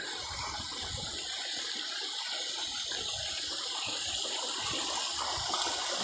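Steady rush of flowing water from a nearby stream or waterfall, with faint low knocks underneath.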